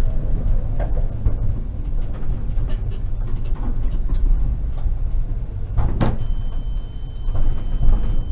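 Konstal 105Na tram rumbling, with scattered clicks and knocks. A sharp clunk comes about six seconds in, followed by a steady high-pitched beep that keeps sounding.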